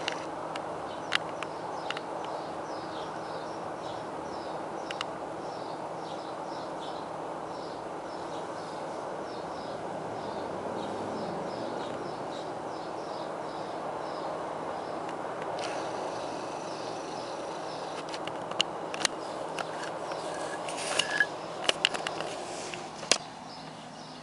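Steady background hiss with faint short chirps repeating a few times a second, and a handful of sharp clicks, more of them near the end.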